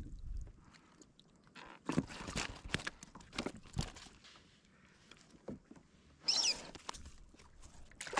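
Scattered knocks and rattles of a fishing rod and kabura jig being handled in a sit-on-top kayak, with a brief high squeak falling in pitch about six seconds in. A splash near the end as a fish is dropped back into the sea.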